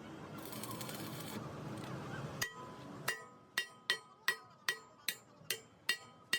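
A hand hammer striking steel in a steady rhythm, about two to three blows a second, each blow ringing with a metallic tone. Before it comes a couple of seconds of rough scraping noise and one lone strike.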